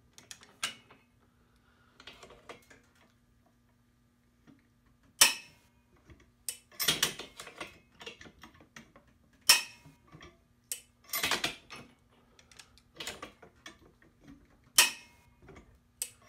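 Click-type torque wrench breaking over against a dead-weight calibration rig: three sharp clicks a few seconds apart, the wrench releasing at its set torque of a little over 100 lb-ft. Between them are quieter metallic clinks and rattles from the wrench and the lever arm.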